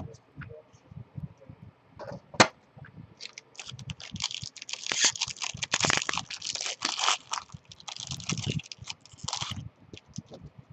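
Foil trading-card pack wrapper being torn open and crumpled: a dense crackling from about three seconds in until near the end. Before it come a few clicks and a sharp tap as cards are handled.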